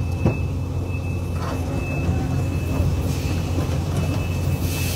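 Case CX220 hydraulic excavator's diesel engine running steadily under a deep rumble, with a thin steady high whine over it. A short click comes just after the start, and swells of hiss come and go in the second half.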